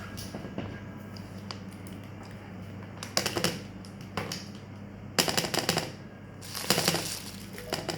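Several short bursts of rapid clicking and rattling, about four in all, from hard objects being handled and knocked together, over a steady low hum.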